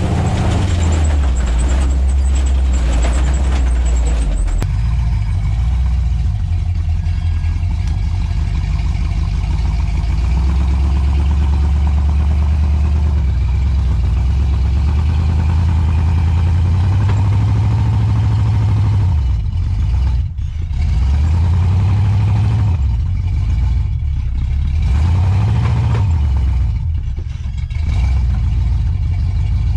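Lifted 4x4 truck's engine pulling under load as it crawls up a rocky obstacle, heard from inside the cab for the first few seconds and then from outside. In the second half the engine note rises and falls several times as the throttle is worked, dipping briefly about two-thirds through and again near the end.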